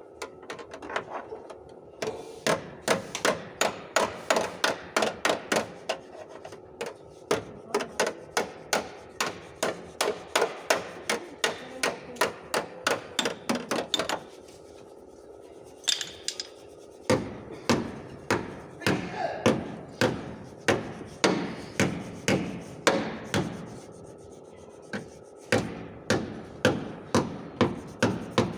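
Body hammer tapping out dents in the sheet-metal rear fender of a car, in runs of quick sharp strikes about two to three a second, with short pauses between runs.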